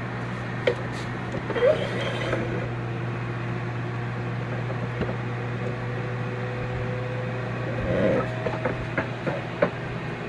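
Steady whir of a running kitchen fan with a low hum underneath, broken by a few short knocks and rubbing sounds as the camera is handled, mostly near the end.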